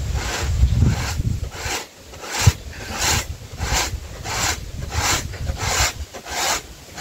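Corn being grated by hand on a homemade metal grater fixed to a wooden board: rhythmic rasping strokes about one and a half a second, with low knocks in the first second or so.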